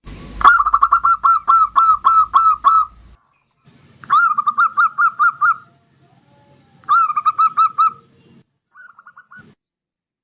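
Zebra dove (perkutut) cooing: three phrases of rapid, evenly repeated notes, a long first phrase and two shorter ones, then a short faint phrase near the end.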